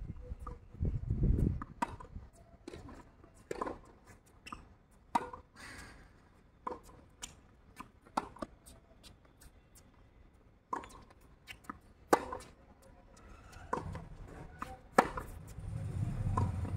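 Tennis rally on a hard court: sharp pops of rackets striking the ball and the ball bouncing, coming every second or two, some near and loud, some distant and faint. A low rumble rises about a second in and again near the end.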